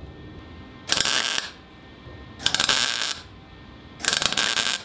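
Wire-feed welder laying three short tack welds, each a crackling burst of about half a second, roughly a second and a half apart, tacking a metal patch strip into a gap along the edge of a car body panel.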